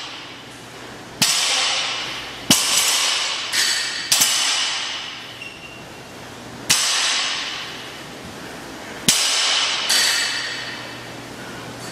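Loaded barbells set down and knocking on the gym floor: about six sharp metal clanks at uneven intervals, each ringing out for a second or two.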